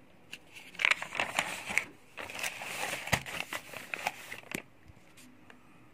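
A paperback textbook page being turned by hand: paper rustling and crinkling for about four seconds, with a few sharp crackles.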